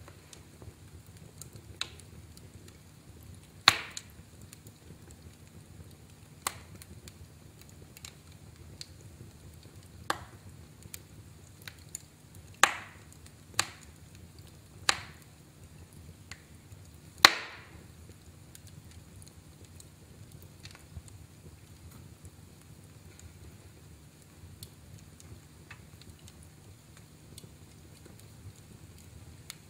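Wood fire crackling in a fireplace: scattered sharp pops at irregular intervals, the loudest about four seconds in and again near thirteen and seventeen seconds, over a faint low rumble.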